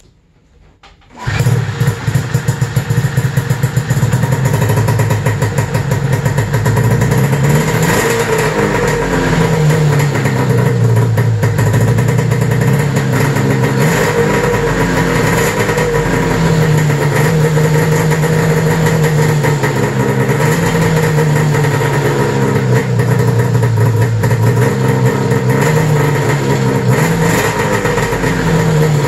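1995 Arctic Cat ZR 700 snowmobile's three-cylinder two-stroke engine starting about a second in, then running. From about seven seconds on, the engine speed rises and falls several times.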